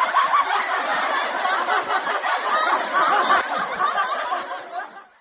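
Several people laughing and snickering together, with some chatter mixed in, fading out near the end.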